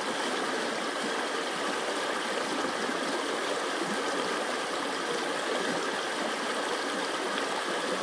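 A small creek running over rocks, a steady even rush of water.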